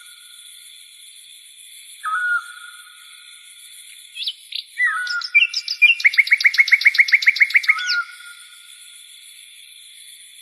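Bird calling: a short whistled note about two seconds in and again near five seconds, then a rapid trill of about fifteen quick notes lasting some two seconds, over a steady high-pitched background tone.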